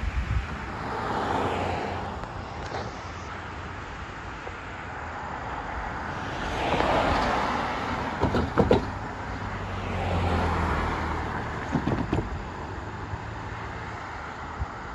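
Road traffic, cars and a van, driving past and over the level crossing. Each vehicle passes as a swell of tyre and engine noise, with a few short thumps as tyres go over the rails about halfway through and again near twelve seconds.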